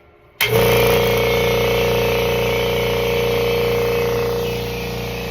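Kobalt 26-gallon Quiet Tech air compressor switching on abruptly about half a second in and running steadily with a hum and a steady whine, its pump beginning to fill the tank with air.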